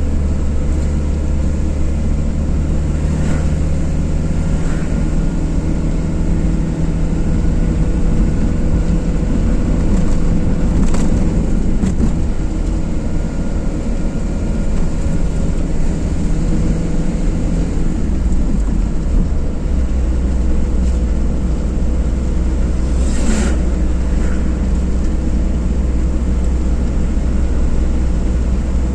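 Car driving on a motorway: a steady low rumble of tyre, road and engine noise, with a few brief ticks, the clearest late on.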